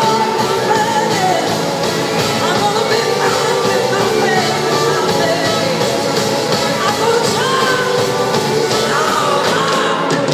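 Live rock band playing loudly, with a woman's voice singing over electric guitar, two drum kits and saxophone.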